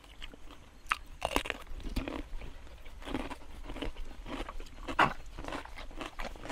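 A person chewing grilled fish close to a clip-on microphone: irregular crunching and mouth clicks, with one sharp louder click about five seconds in.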